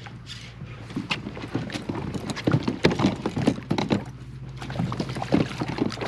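Irregular knocks and clicks from a fishing kayak and its tackle while a bass is fought to the boat on a bent rod, over a steady low hum.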